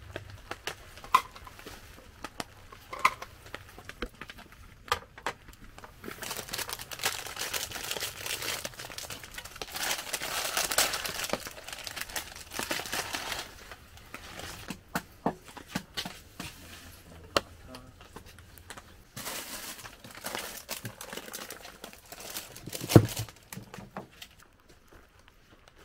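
Plastic food packets crinkling and tearing as instant noodle packets are ripped open and emptied into a pan, in long crackly stretches broken by small clicks and taps. A sharp knock near the end.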